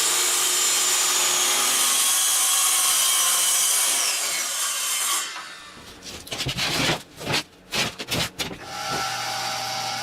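Circular saw ripping through a sheet of plywood, its motor whine steady under the cut and then dropping in pitch as it spins down about four to five seconds in. Knocks and scraping of the cut plywood being handled follow, and a quieter steady hum starts near the end.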